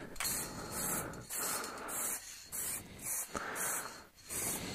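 Aerosol can of black spray paint hissing in about eight short bursts at an even pace, a quick pass laid down with each press of the nozzle.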